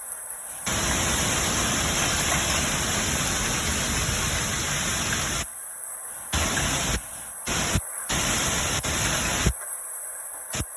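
Strong storm wind buffeting the microphone: a loud, deep rush that holds for about five seconds, then cuts in and out in gusts.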